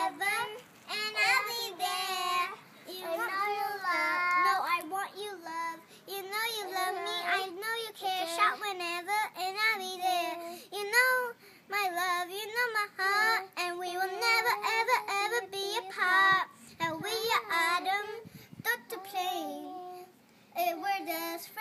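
Young girls singing a song together with no accompaniment, their phrases running on with short breaths between.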